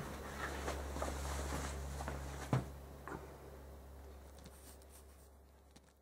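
Faint workshop room tone: a low steady hum with a few small knocks, the loudest about two and a half seconds in, fading out near the end.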